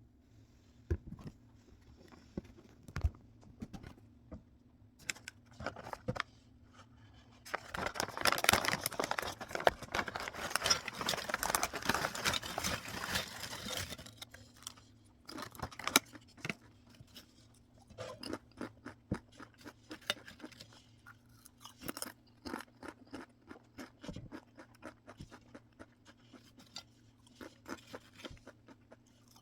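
Crunchy snacks being handled and eaten: scattered crisp clicks, then a loud, dense crackling stretch of several seconds, then repeated short crunches.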